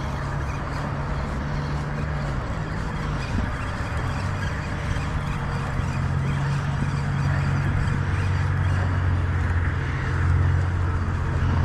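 Steady low drone of road traffic crossing the bridge, without a break.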